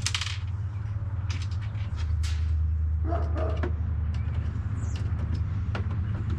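Steady low hum with scattered light clicks and taps of hand work, and a dog barking briefly about three seconds in.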